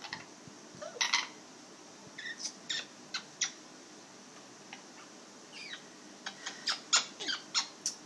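Amazon parrot making short, sharp squawks and chirps: a couple about a second in, a few more around three seconds, then a quick string of them near the end.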